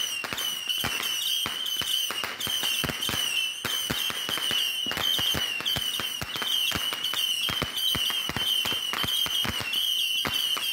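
A 300-shot missile battery firework launching its small rockets in rapid succession, about four sharp pops a second, over a continuous high whistle from the rising missiles.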